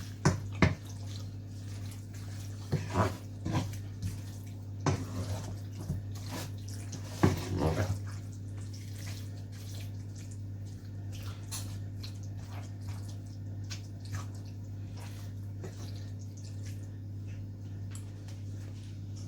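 Knocks and short clatters of cooking utensils against a pot in the first eight seconds, then faint, irregular ticking and bubbling from the simmering stew, over a steady low hum.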